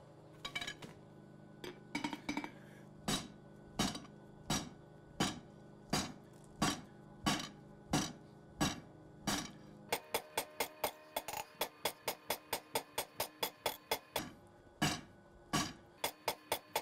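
Hand hammer striking a glowing round bar of 52100 steel on an anvil, forging a point. The blows come steadily at a little over one a second, then turn quicker and lighter, about three a second, past the middle.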